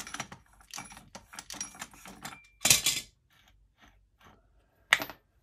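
Small metallic clicks and clinks as the stuck flange nut on a Makita angle grinder's spindle is worked loose with channel-lock pliers and turned off by hand, with a louder clatter about two and a half seconds in and a single sharp click near the end.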